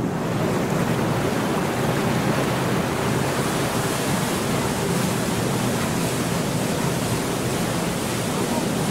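Steady rushing noise aboard a moving canal tour boat, wind and water against the hull and microphone, with a faint low hum of the boat's engine underneath.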